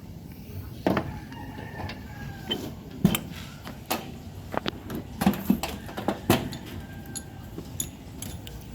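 Irregular clinks and knocks of hand tools and metal parts being handled, a dozen or so sharp strikes scattered through, the loudest about three and six seconds in.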